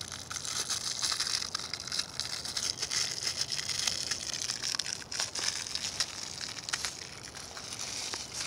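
Crinkling and crackling of a small clear plastic bag being pulled and torn open by hand, with many sharp crackles.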